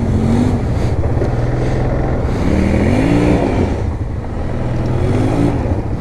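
ATV engine, a Yamaha Grizzly 700 single-cylinder, running with short rev blips that rise and fall in pitch, the biggest about three seconds in and a smaller one near the end.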